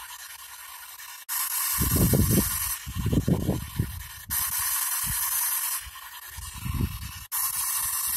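P-SB7 spirit box sweeping the radio band: a steady hiss of white-noise static that changes sharply about every three seconds, broken by short garbled scraps of broadcast sound.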